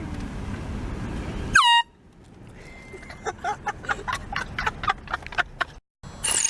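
A handheld canned air horn gives one short, loud blast whose pitch sags as it cuts off, over a steady low rumble of a car on the move. After it, the sound drops to scattered light clicks and faint voices.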